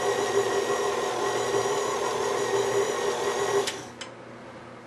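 KitchenAid Classic tilt-head stand mixer running steadily, its flat beater shredding cooked chicken in the steel bowl. The motor stops about three and a half seconds in, followed by a light click.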